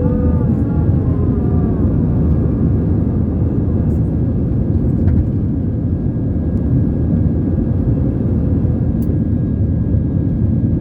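Steady engine and airflow noise heard inside the cabin of an Airbus A320-214 climbing after takeoff, with its CFM56 turbofans at a constant setting and a faint steady high whine over it. A voice is briefly heard in the first two seconds.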